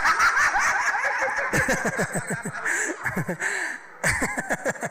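An audience laughing, with one person's laughter close to the microphone in quick repeated bursts, dropping off briefly near the end.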